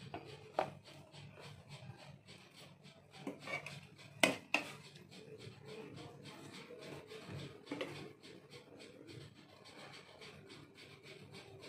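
A metal serving spoon scooping chicken curry from a pot into a serving dish: soft scraping, with a few light clinks against the pot and dish. The sharpest are two about four seconds in.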